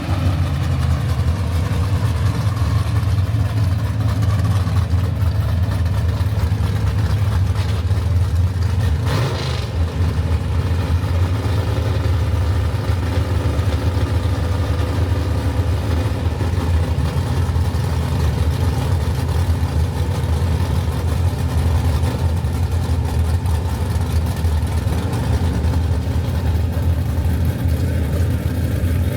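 Drag-racing car engine running at a steady idle, with a loud, deep rumble. A brief sharp burst of noise comes about nine seconds in.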